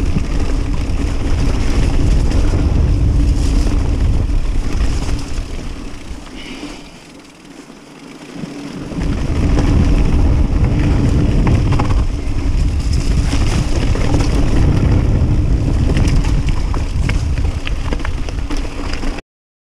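Wind buffeting the action camera's microphone as a Kona Process 153 mountain bike descends a gravel forest trail, with frequent small clicks and clatter from the tyres on stones and the bike over rough ground. The rush drops away for about two seconds some seven seconds in, then comes back, and cuts off suddenly near the end.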